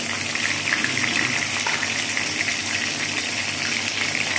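Chicken pieces frying in hot oil in a pan: a steady sizzle with fine crackling.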